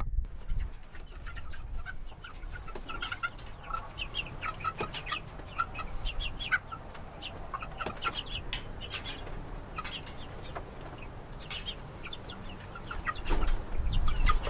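A flock of three-week-old meat chicks peeping, many short high calls overlapping, with no pause between them.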